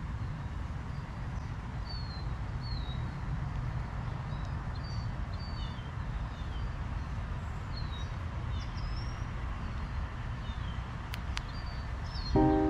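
Small birds chirping in short, scattered calls over a steady low rumble. Music starts just before the end.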